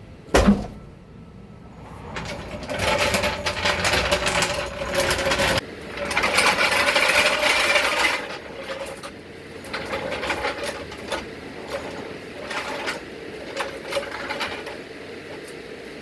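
A car being jacked up with a mechanical jack: a single loud knock, then a rapid mechanical rattle with a steady hum underneath, running in two long bursts from about two to eight seconds in and in shorter bursts after that.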